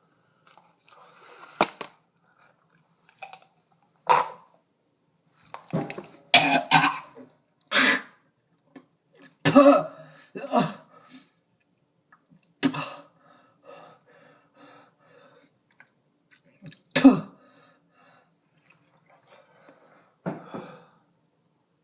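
A man coughing and clearing his throat in harsh, irregular bouts, about eight over the span, with a double cough a little after six seconds in: a reaction to the burn of ghost pepper fries he has just eaten.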